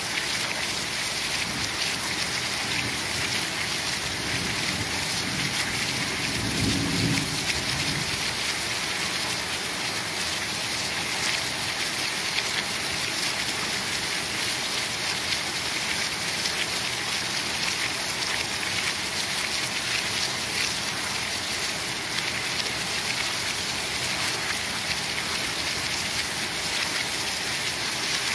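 Heavy rain falling steadily in a dense, even hiss. A short low rumble of thunder comes about seven seconds in.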